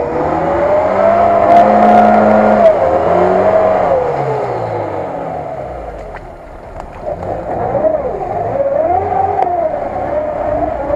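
Lada Niva 4x4 engine revving hard with wheels spinning in deep mud as it struggles for grip in a water-filled rut. The revs climb over the first two seconds, hold, then drop away, followed by a second run of rising and falling revs.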